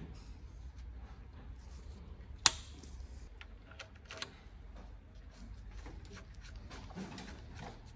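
Metal parts of a camshaft timing sprocket and its bolt clicking as they are fitted by hand: one sharp click about two and a half seconds in, then a few light ticks, over a low steady hum.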